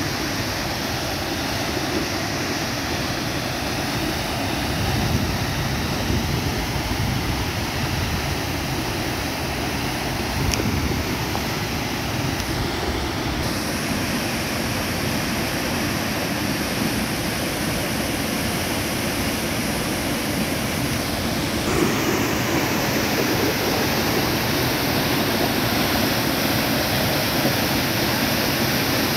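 Lake water spilling over a concrete spillway crest and pouring into a narrow chute below: a steady rushing of falling, churning water. This is the lake's outflow passing through the flow-regulating outlet structure. It grows a little louder and brighter about three-quarters of the way through.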